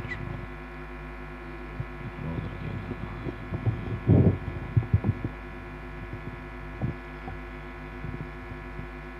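Steady electrical hum from a microphone and sound system, with soft, muffled low sounds and a brief louder bump about four seconds in as the microphone is handled.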